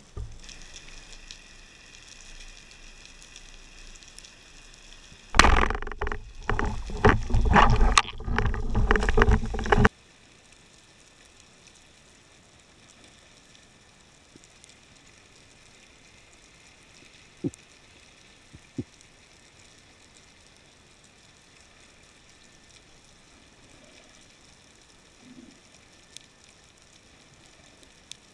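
Underwater ambience picked up by a camera on a speargun. A few seconds in, a loud stretch of irregular rough noise starts; it stops abruptly, leaving a quiet steady underwater hiss with two faint clicks.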